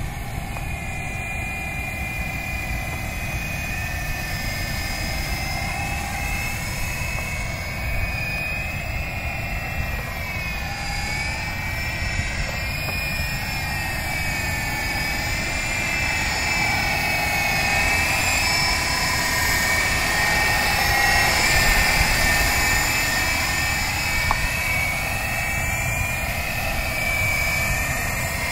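Radio-controlled coaxial helicopter running, its motors and rotors giving a high whine that wavers up and down in pitch with the throttle. It grows louder about two-thirds of the way through, over a low rumble.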